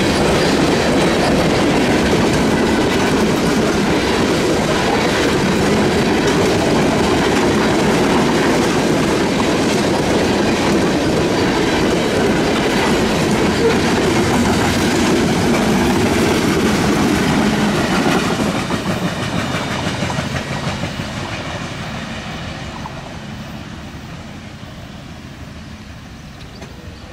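Freight train of loaded trash gondola cars rolling past close by, the steel wheels running steadily over the rails. The sound fades from about two-thirds of the way in as the cars move off down the line.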